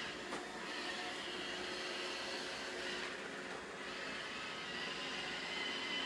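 iRobot Roomba robot vacuum running over a rug: a steady whirring hum with a thin high whine. Its sound shifts briefly about half a second in and again around three seconds in.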